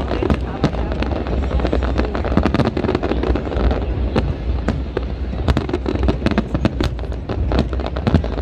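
Aerial fireworks display: many sharp bangs and crackles from bursting shells in quick succession, over a steady low background.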